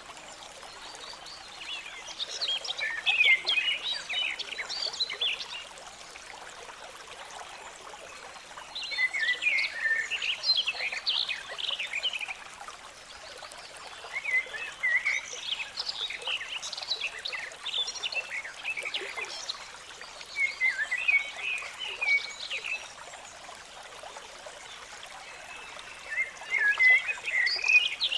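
A small stream trickling steadily, with frogs calling over it in about five bouts of quick, rapid chirps, each bout a few seconds long.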